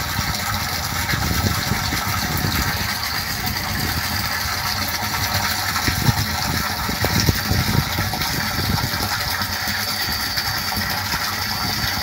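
Water gushing steadily into a tank from the motor-fed inlet, the surface churning as the tank fills.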